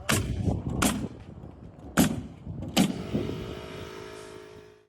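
Four sharp knocks of carpentry work at uneven intervals, the last two the loudest, followed by a fading ringing tone.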